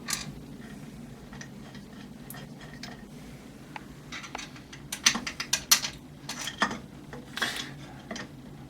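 Metal parts of a 3D printer kit clinking and clicking as they are handled and fitted together. A few faint ticks come first, then a run of sharper clinks and clatters from about four seconds in.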